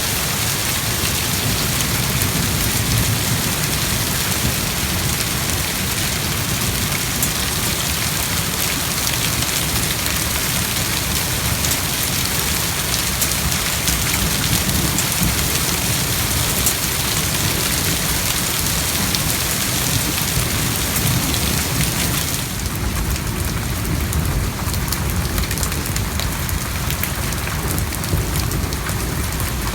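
Heavy thunderstorm rain pouring down steadily, a dense hiss of drops striking surfaces. A deeper low rumble joins it about two-thirds of the way through.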